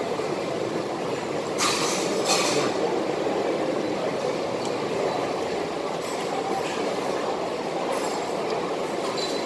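Steady background rush of a busy food centre, with a brief clatter about two seconds in.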